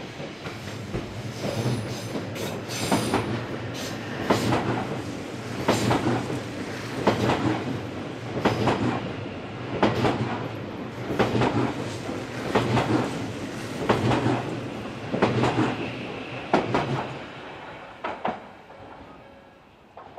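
Odakyu Line electric train passing over a level crossing, its wheels clacking in a steady rhythm about every one and a half seconds over a low running hum, then fading away near the end.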